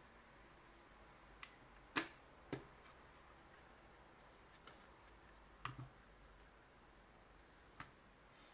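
A few sharp clicks and taps of a desoldering gun's casing being handled and fitted back together, the loudest about two seconds in, over near silence.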